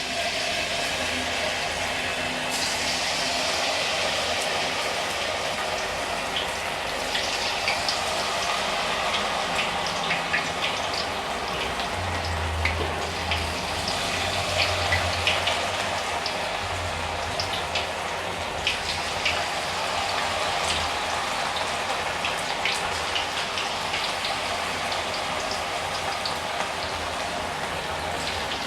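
Masala-coated cauliflower florets deep-frying in hot oil: a steady sizzle with scattered crackles and pops.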